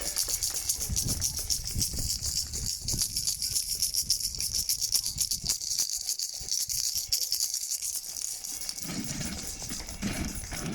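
Many people clapping at once, a dense, steady mass of handclaps with no break.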